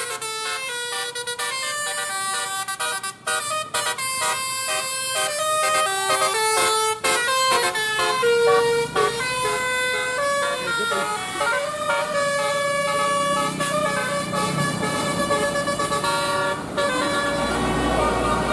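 Telolet basuri multi-tone vehicle horn playing a quick melody, its notes stepping up and down several times a second. A low rumble builds near the end.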